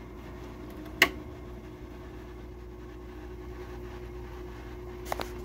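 Haier 5,000 BTU window air conditioner running on low cool, a steady hum with a faint steady tone. There is a sharp knock about a second in and a couple of small clicks near the end.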